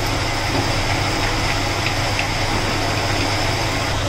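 Metal lathe running with a steady mechanical hum, its chuck spinning a small steel shock absorber part as the cutting tool is brought up to it, with a few faint ticks.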